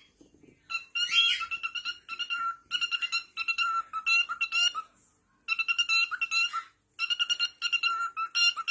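A parrot mimicking an electronic phone ringtone or alarm: groups of rapid, steady-pitched beeps, several a second, with short breaks between the runs.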